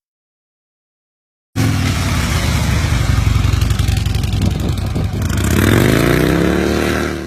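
Motorcycle engine running, starting abruptly about a second and a half in, then revved near the end with its pitch rising.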